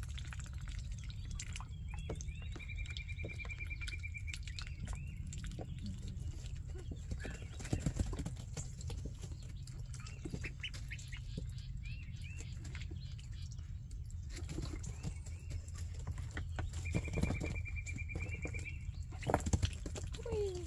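Ducklings and goslings peeping, many short repeated calls, with two longer rapid trills, over scattered splashes and pattering and a steady low hum.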